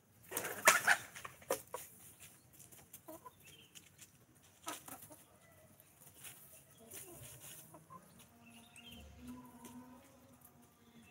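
Free-range chickens and a rooster clucking softly while they forage, with a short, loud scuffling or fluttering burst about half a second in and a few sharp taps after it.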